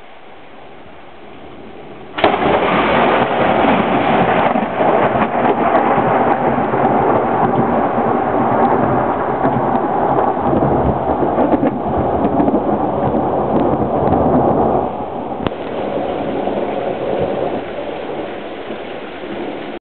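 Steady rain, then about two seconds in a sudden, very loud crack of close thunder from a nearby lightning strike. It rolls on loudly for about twelve seconds, then eases off over the rain.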